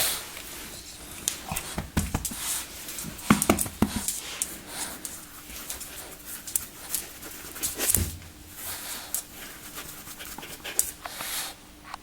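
French bulldog breathing noisily through its short, flat nose in irregular short breaths and snorts, typical of the breed, with a few louder ones about two, three and a half and eight seconds in.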